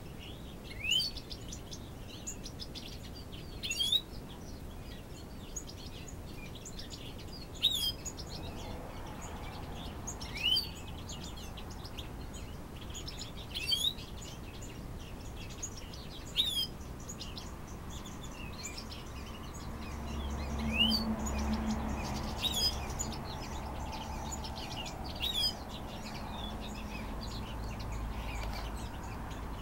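Small birds chirping: short, rising chirps about every three seconds, with fainter chirps in between. A low hum joins about twenty seconds in.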